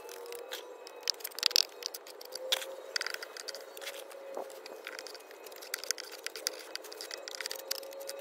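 Small steel trowel scraping and patting wet cement mortar along the top edge of a wooden form, in a string of short scrapes and taps.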